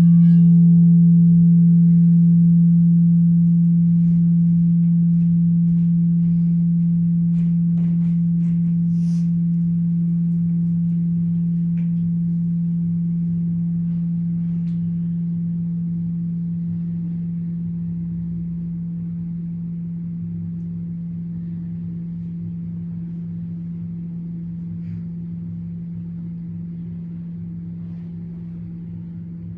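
A single deep ringing tone that starts sharply and fades slowly and evenly over about half a minute, with a few faint small clicks about eight seconds in.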